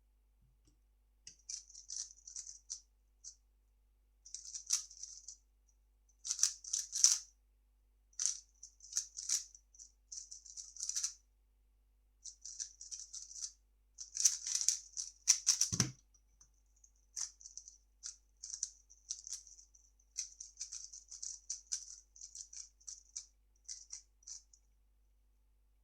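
3x3 speedcube being turned in quick runs of clicky, rattling layer turns, broken by short pauses. A single thud comes about two-thirds of the way through.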